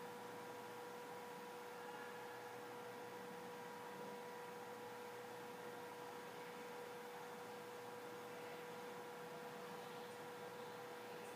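A steady, faint electrical hum at one fixed mid pitch, with a weaker tone an octave above, over quiet room hiss.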